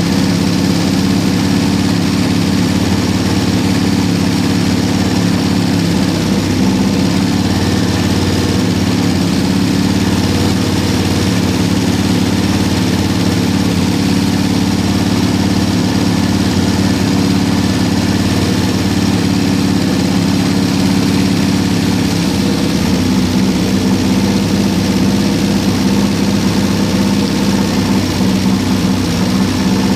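1974 Toyota Corolla's four-cylinder carburetted engine idling steadily with the hood open. Its note shifts slightly about two-thirds of the way through.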